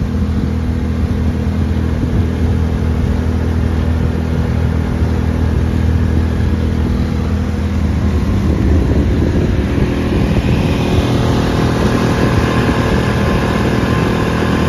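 5 hp Coleman outboard motor running steadily under way, pushing a small boat along the river; about nine seconds in it gets louder and brighter.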